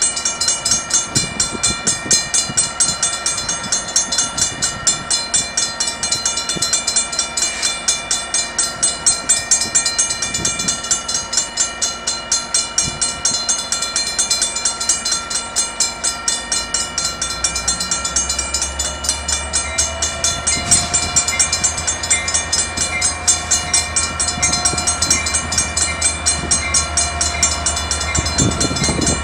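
Warning bell ringing rapidly and evenly, about three strikes a second, as a Metrolink diesel commuter train approaches. From about 18 seconds in, the locomotive's low engine rumble comes up under it, and a steady tone joins about two seconds later.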